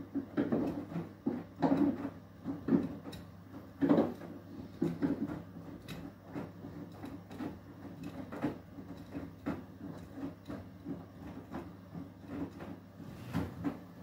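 Beko WTK104121W front-loading washing machine on its Eco 40 wash, the drum turning slowly through water: a steady motor hum under irregular swishes and soft thuds of wet laundry dropping. The thuds are loudest and most frequent over the first four seconds, then come softer.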